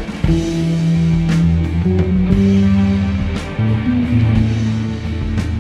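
Background music: sustained guitar and bass notes with sparse drum hits.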